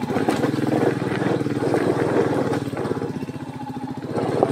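Royal Enfield motorcycle's single-cylinder engine running hard under load as the bike is pushed and ridden up a steep rocky climb, its revs dipping briefly about three seconds in and picking up again near the end.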